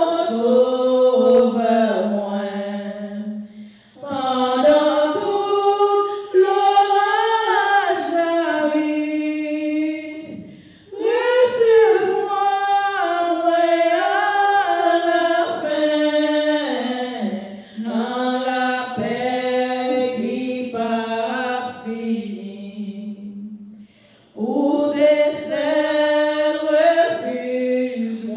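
A woman singing a hymn solo and unaccompanied into a handheld microphone. Slow, long-held phrases, with short pauses for breath between them.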